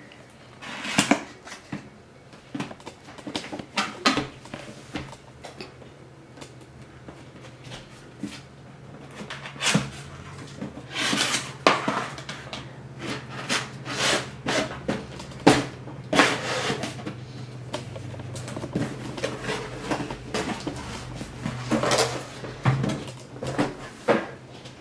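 Cardboard toy packaging being handled: a white outer box opened and tipped on its side, and the inner display box slid out, with scattered knocks, taps and card scraping against card.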